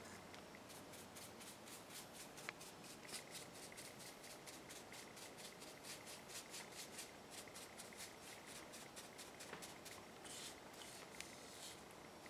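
Varnish being applied to a carved wooden figure: faint, quick scratchy strokes, about three or four a second, giving way to a few slower rustles near the end.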